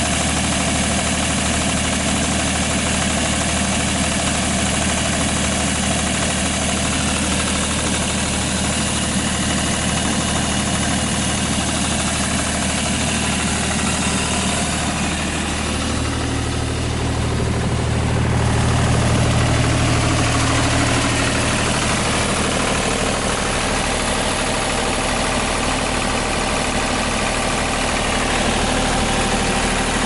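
Deutz F3L1011F three-cylinder diesel of a Ditch Witch 3500 trencher running steadily at idle. It grows a little louder for a few seconds past the middle.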